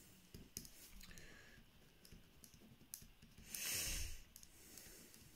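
Ballpoint pen writing on paper: faint scratching and small ticks of the pen tip. There is a louder brush of noise about three and a half seconds in.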